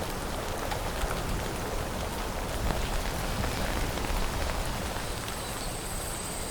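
Steady rain falling: an even hiss of many small drop impacts.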